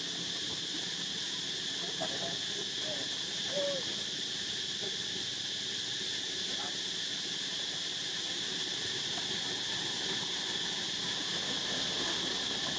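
Steady high-pitched drone of insects, with a few faint short calls about two to four seconds in.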